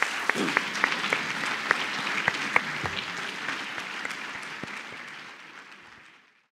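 An audience applauding, a dense patter of many hands clapping that gradually dies away and fades out near the end.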